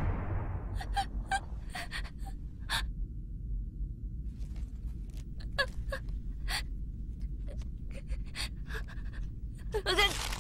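Panting and gasping breaths from an anime character, short breaths coming unevenly one after another over a low steady rumble. There is a louder voiced gasp near the end.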